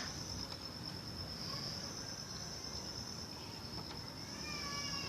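Crickets chirping in a steady, continuous high trill.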